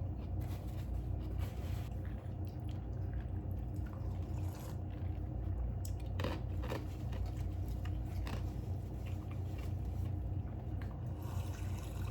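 Close-up eating sounds: chewing and biting food, with a scattering of faint clicks over a steady low hum.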